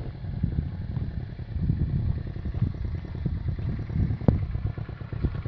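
Motorcycle engine running as the bike rides along, a low, uneven rumble, with a brief knock about four seconds in.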